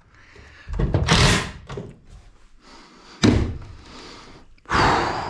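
Thuds and knocks from work on a wooden 2x4 bed frame inside an enclosed lifeboat's hull. A rustling scrape comes about a second in, a sharp knock a little after three seconds, and another thud near the end.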